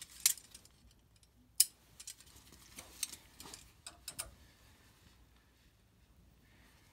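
Metal hand tools clinking and tapping: two sharp clicks in the first couple of seconds, then a run of lighter clicks and taps, with the last two seconds quiet.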